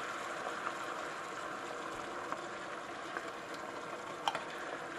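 Shrimp scampi sauce simmering in a frying pan, a steady bubbling hiss, as diced tomatoes are tipped in from a can. A faint knock comes about four seconds in.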